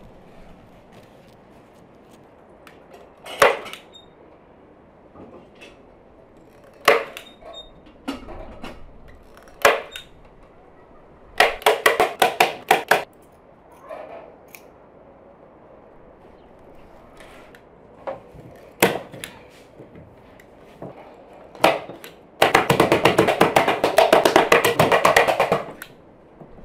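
Sharp snaps and clacks of hand tools on upholstery work, with a manual staple gun and scissors in use. Single loud snaps come a few seconds apart, a quick run of clacks comes about eleven seconds in, and a dense rapid rattle lasts about three seconds near the end.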